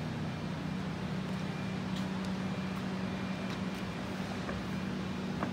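A steady low mechanical hum with a few faint ticks.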